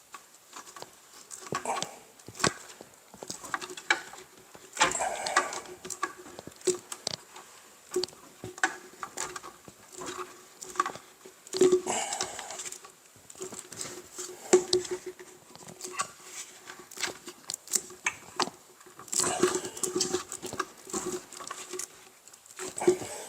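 Hands handling a plastic dust collection hose and its fittings on a miter saw: irregular clicks, taps and rustling scrapes, with busier stretches of handling several times.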